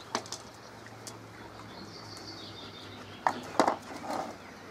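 Metal paint tin being opened and handled: a few light clicks, then a cluster of sharp knocks from the lid about three and a half seconds in.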